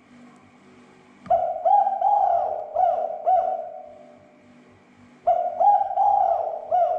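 Spotted dove (tekukur) cooing: two phrases of several rolling coo notes, the first about a second in and the second near the end, played as a lure call to provoke caged doves into calling.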